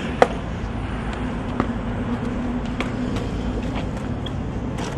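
Skateboard wheels rolling over pavement: a steady low rumble with a few light clicks.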